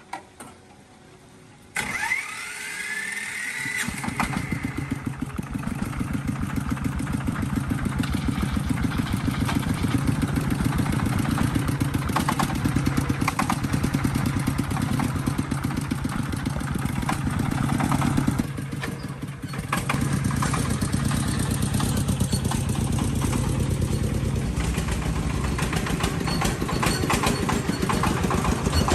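Diesel engine, just repaired after a broken piston, being started. It cranks with a rising whine, catches about two seconds later, and then runs steadily with a fast, even firing beat. The engine falters briefly about two-thirds of the way through and then picks up again.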